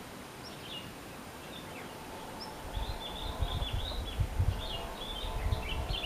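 Sooty-headed bulbul (kutilang) calling: a few scattered chirps, then from about three seconds in a fast, busy twittering chatter. A low thumping rumble starts underneath at the same moment.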